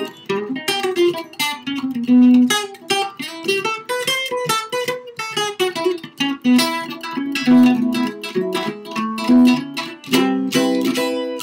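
Solo jazz guitar played chord-melody style: plucked chords near the start and again about ten seconds in, with a single-note melody line between them.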